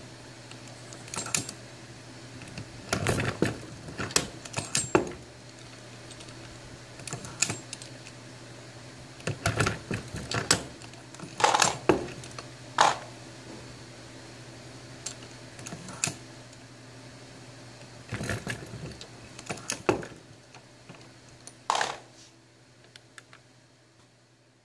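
Metallic clicks and clinks of brass .45 Auto cases being handled on the shell plate of a Hornady Lock-N-Load AP progressive reloading press. They come irregularly and in small clusters, over a steady low hum that fades out near the end.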